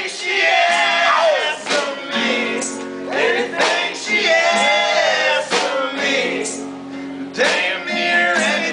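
Small acoustic band playing live: sung vocals over strummed acoustic guitar and a drum kit, with a drum hit about once a second.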